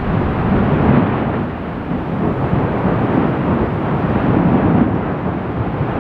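Fagradalsfjall volcanic crater erupting: a continuous noisy rush of lava and gas from the vent, swelling louder about a second in and again near the end.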